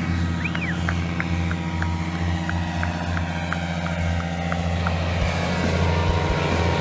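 Paramotor engine and propeller running steadily at climb power as the pilot climbs out, growing a little louder about five seconds in.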